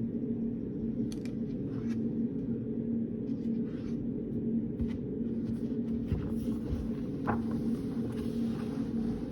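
Study-room background: a steady low hum with a constant droning tone. Faint scattered ticks and rustles of desk work sit above it, more of them in the second half.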